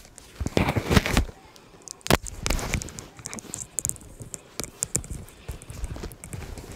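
Handling noise from a clip-on lavalier microphone being fitted to a shirt: rubbing and scraping against the mic, with irregular knocks and a sharp click about two seconds in, then lighter ticks.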